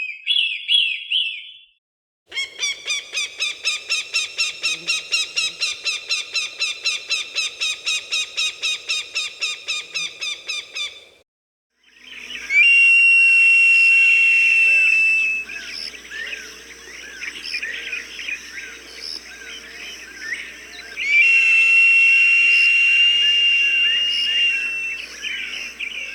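Hawk calls. First comes a rapid run of sharp repeated notes, about five a second, lasting roughly nine seconds. Then come two long, steady high-pitched screams, each several seconds long, with small birds chirping in the background.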